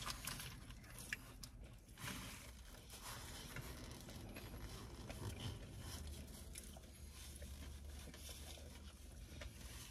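Faint chewing and mouth sounds of people eating French fries, with scattered soft clicks over a low steady hum.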